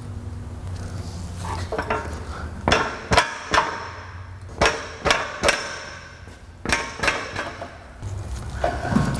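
Irregular metal clanks and knocks, about eight sharp strikes with short ringing, from steel K-member spacers and bolts being handled and fitted to a car's underbody, over a steady low hum.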